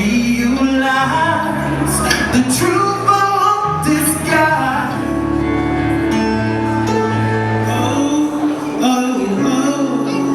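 Music with singing: held bass and chord notes under a sung melody line.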